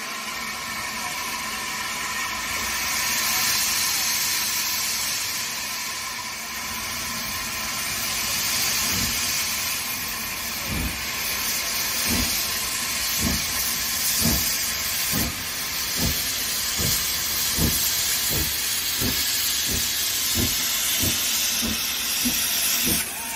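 Hunslet Austerity saddle-tank steam locomotive starting its train with the cylinder drain cocks open: a steady hiss of escaping steam. From about nine seconds in, exhaust chuffs begin and quicken slightly to about three every two seconds as it gathers speed.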